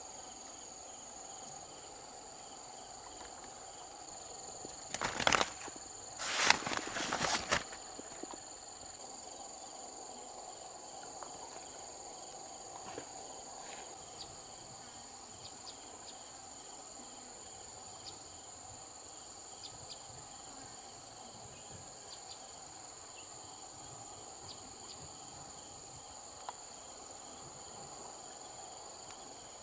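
Steady chorus of insects at the riverside, a continuous high shrill tone with a lower hum beneath. About five seconds in, a few seconds of loud noisy bursts, like close handling or rustling, stand out over it.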